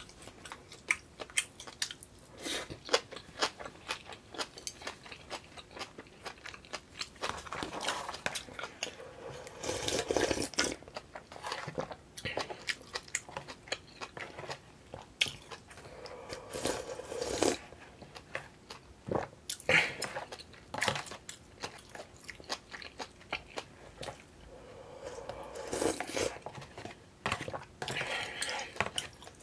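Close-miked eating sounds: chewing with many sharp, wet mouth clicks, broken three times by longer slurps as yukgaejang (spicy beef soup) broth is drunk straight from a plastic bowl.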